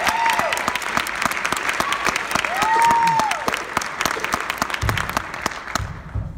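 Audience applauding with a few high whistles or whoops, the clapping fading over the last second or two. Low drum beats start up about five seconds in.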